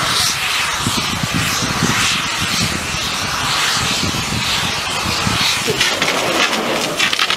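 Large gas-fed fire burning: a loud, steady rushing noise with irregular low crackles through it.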